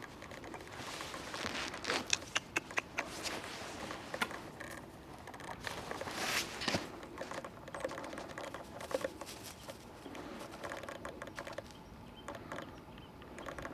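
Shiba Inu puppy moving about: a patter of small, irregular clicks and scratches.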